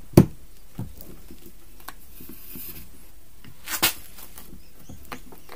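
Clicks and knocks of hard 3D-printed plastic parts being fitted together by hand on an arbor press: a sharp knock just after the start, a smaller one about a second in, another sharp knock near four seconds, and a few faint ticks between.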